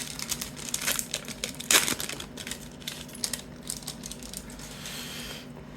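A trading-card pack wrapper being torn open and crinkled by hand, with crackling throughout and two sharp, loud crackles, one at the start and one just under two seconds in.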